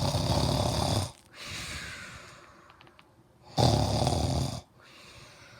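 Loud snoring: two long, rattling snores about three and a half seconds apart, each followed by a quieter, longer breath.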